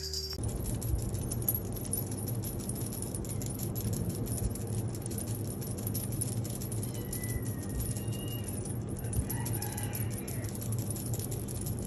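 Continuous dense rattling and clicking from a feather wand cat toy being shaken, with a few faint chirps past the middle.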